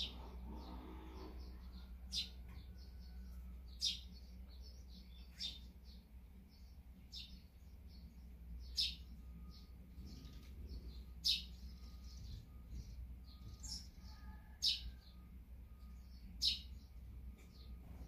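Eurasian tree sparrows chirping: a busy run of short, high chirps, with a louder, sharp chirp every second or two, over a faint low hum.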